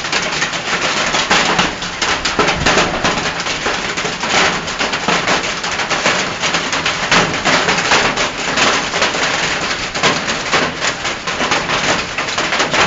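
Hailstones pelting down hard: a dense, unbroken clatter of many small impacts.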